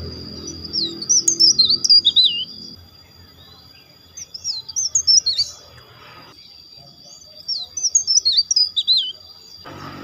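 Caged tralis songbird whistling three short phrases of quick, high notes that swoop up and down, a few seconds apart. Underneath, a low, faint pitched background sound fades out about three seconds in and comes back near the end.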